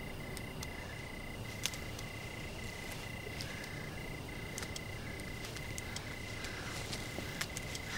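Night ambience of a cricket chirping: a steady high trill broken by brief gaps about twice a second, over low background noise, with scattered faint clicks.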